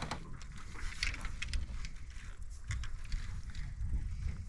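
Wind rumbling on the microphone, with scattered faint clicks and taps from handling fishing gear in an aluminum-sided canoe.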